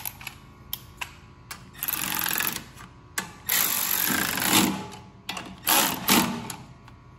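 Milwaukee quarter-inch cordless electric ratchet running in three bursts, the middle one the longest, with a few clicks between, as it runs down and snugs the 10 mm nuts holding a carburetor to a small engine.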